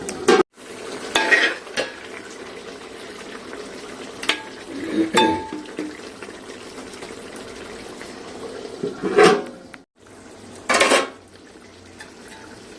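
A spoon stirring and scraping in a pot of simmering chicken curry, with about six separate clinks and scrapes of the utensil against the pot over a steady faint hiss.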